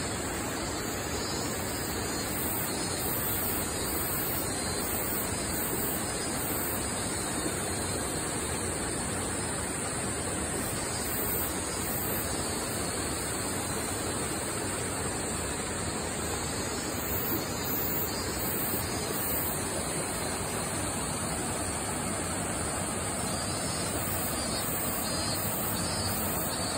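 Shallow mountain stream rushing and burbling over rocks and stones in a steady, unbroken flow.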